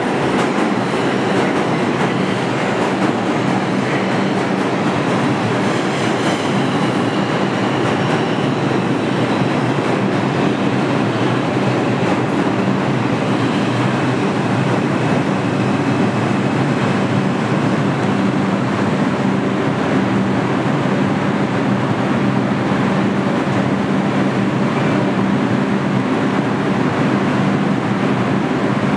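Bombardier R142 subway train rolling into an underground station and slowing to a stop. Steady wheel-on-rail rumble with some clickety-clack, a low hum and a faint high electric whine.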